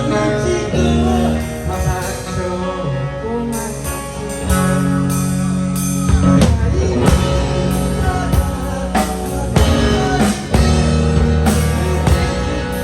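Live rock band playing: electric guitar and bass holding sustained chords over a drum kit, in a passage with no clear vocal line.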